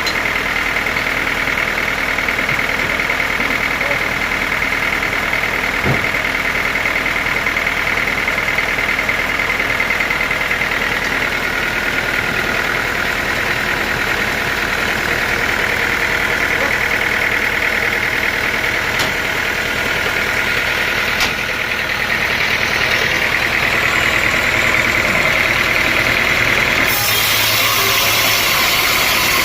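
Sawmill machinery running steadily with a high whine. Near the end a harsher hiss joins in.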